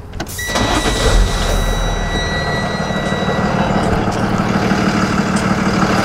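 Box truck engine idling steadily, getting louder about half a second in. A thin, steady high tone sounds over it for about three seconds near the start.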